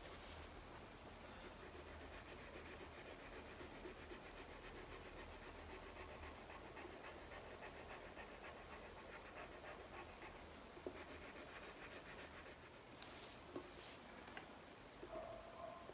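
Coloured pencil shading on paper, a faint steady scratching. Near the end come two brief louder rustles.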